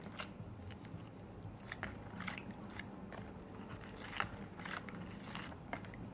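A thick mix of oils and arrowroot powder being stirred in a bowl, giving soft, irregular scrapes and clicks as the powder is worked in.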